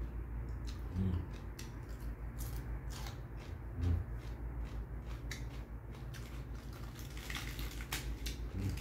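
Close-up chewing of a raw cucumber slice: a rapid run of crisp crunching clicks, with two dull low thumps about a second in and near four seconds. Near the end, crisp lettuce leaves rustle as they are torn.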